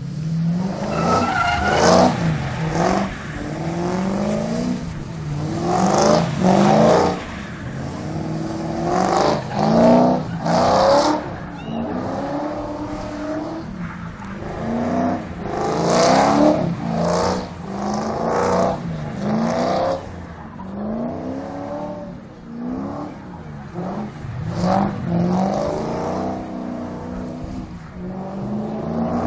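Drift car's engine revving hard and dropping off again and again as it slides sideways around the cones, with bursts of tyre squeal.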